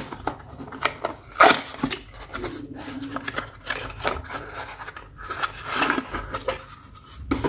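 Hands unpacking an LED bulb from its box: irregular rubbing, scraping and clicking of the packaging, with a few louder knocks.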